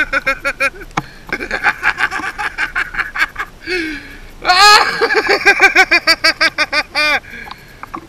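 A man laughing in rapid, high-pitched bursts, with a rising cry about halfway through.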